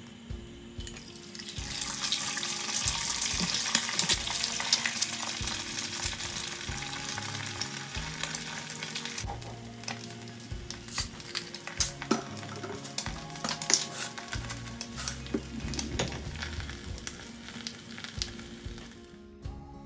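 An egg frying sunny side up in hot oil in a nonstick pan: sizzling and spitting that starts about two seconds in, loudest at first, then settling to a lighter crackle with scattered pops.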